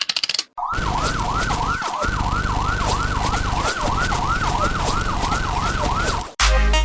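Police-style siren: a tone that sweeps up and drops back about three times a second, over a low steady hum. It starts about half a second in, after a brief run of rapid clicking, and cuts off suddenly near the end.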